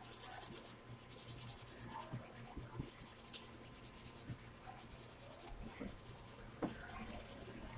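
Pencil scratching on drawing paper in quick, repeated short shading strokes, loudest in the first two seconds.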